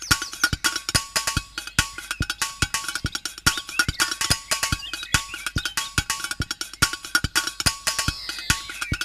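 Background music with fast, busy percussion: rapid clicking strikes over a short repeating melody.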